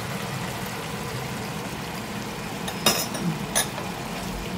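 Pans cooking on the hob, a mushroom sauce reducing beside frying pork chops, making a steady sizzling and bubbling. Two sharp clinks of a spoon against the pan come about three and three and a half seconds in.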